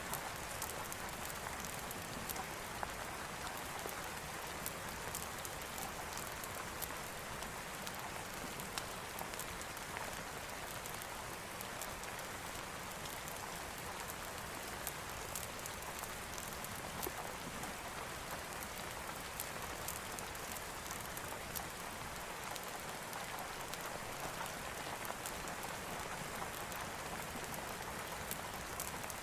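Steady rain falling, an even hiss with many scattered sharp ticks throughout.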